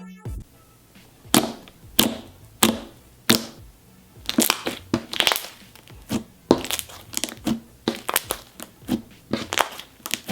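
Foamy, freshly activated slime being mixed and worked by hand, giving irregular sticky crackles and pops, about one or two a second.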